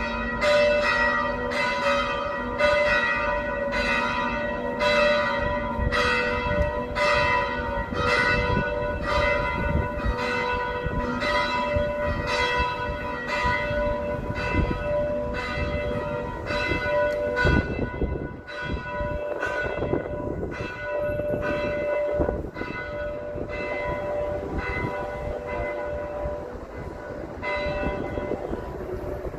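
Cathedral bells ringing, several bells of different pitches struck in a quick, even sequence, their tones ringing on and overlapping. After about eighteen seconds the strokes grow weaker while the held tones hang on over a low rumble.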